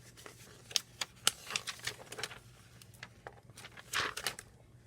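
Pages of a paper instruction booklet being leafed through, with brief rustles and scattered small clicks and taps.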